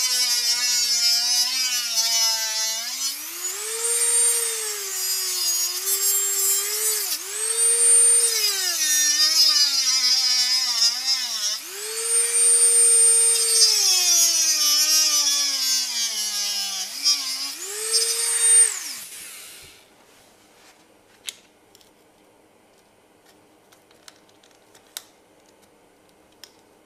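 Dremel rotary tool cutting through a steel motorcycle chain's master link. Its high whine sags in pitch each time the wheel bites into the metal and climbs again when eased off, several times over. It spins down and stops about 19 seconds in, followed by a few faint clicks.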